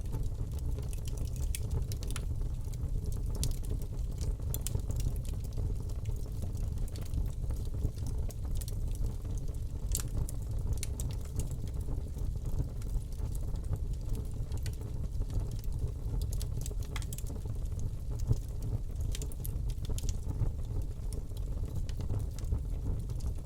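Wood fire burning in a fireplace: a steady low rumble of flames with scattered crackles and pops throughout.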